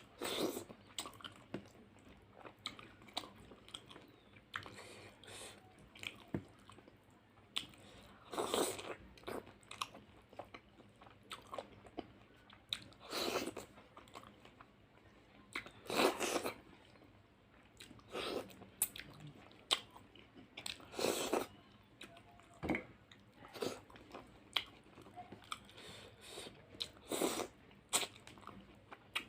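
Close-miked eating sounds: a person chewing a meal of spicy fish curry, rice and salad, with irregular louder crunchy bites and mouth noises every few seconds.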